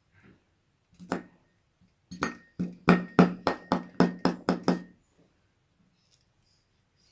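A single knock, then a quick, even run of about ten hollow knocks, three or four a second, each leaving a short ringing tone: things striking a hollow, resonant container.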